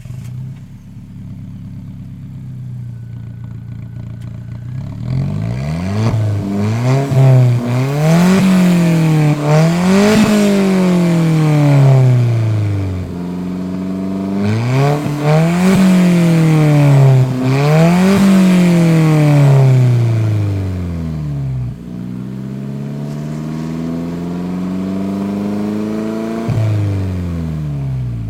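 Alfa Romeo 4C's 1.75-litre turbocharged four-cylinder, through a Novitec aftermarket exhaust. It idles at first, then is revved again and again, the pitch climbing and falling in quick blips, with a few sharp cracks as the revs drop. It settles back toward idle near the end.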